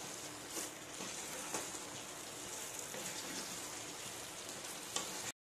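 Thick chilli gravy sizzling in a nonstick pan while a wooden spatula stirs chicken pieces through it, with a few soft scrapes of the spatula. The sound cuts off abruptly near the end.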